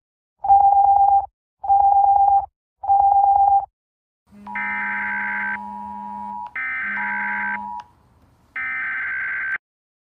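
Emergency alert tones. First, three steady single-pitch beeps of just under a second each. Then a US Emergency Alert System alert starts with three harsh, buzzy data bursts, the first about two seconds long.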